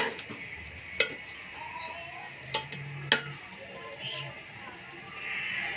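Metal ladle stirring braised pork hock in a metal pot, clanking against the pot three times, with the pot sizzling.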